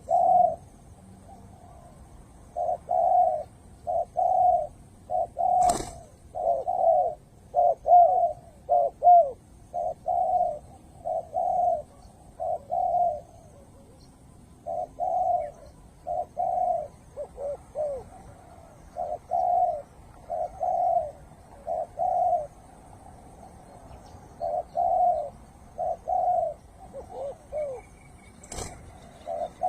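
Spotted dove cooing: low coos repeated in short groups every second or two. Two sharp clicks, one about six seconds in and one near the end.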